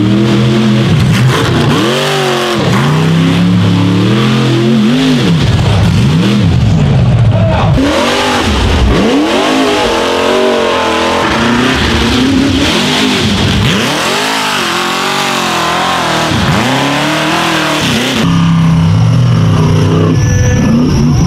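Rock bouncer buggy engines revving hard, the revs climbing and dropping again and again about once a second as the buggies claw up a steep dirt hill, wheels spinning and throwing dirt.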